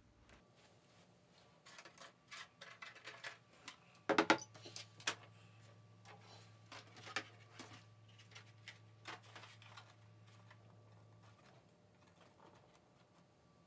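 Scattered light clicks and taps of plastic model-airplane parts being handled on a workbench, with a cluster of sharper knocks about four seconds in. A faint steady low hum runs under them through the middle.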